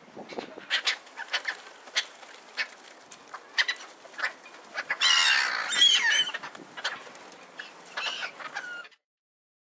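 A flock of black-headed gulls calling at close range, short squawks mixed with the flutter of wings, swelling to a dense burst of overlapping calls about five seconds in. The sound cuts off suddenly near the end.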